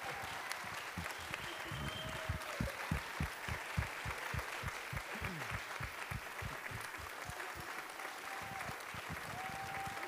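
Audience applauding steadily: a large crowd clapping continuously.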